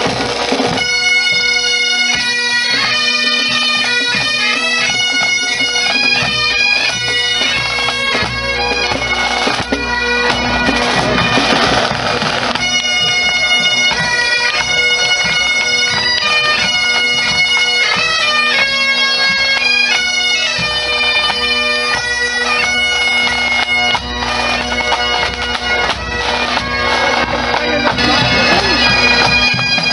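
Pipe band marching past, playing a tune on Highland bagpipes: a steady drone holds under the stepping chanter melody, with drums beneath.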